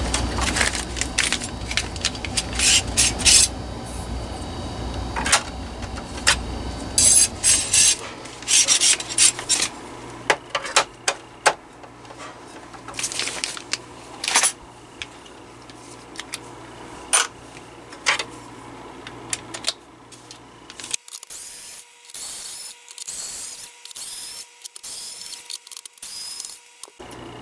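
Plastic housing of a Honeywell HW-690 window fan being handled on a workbench, giving scattered clicks, knocks and rubbing. Near the end a cordless screwdriver runs in a string of short bursts, backing out the case screws.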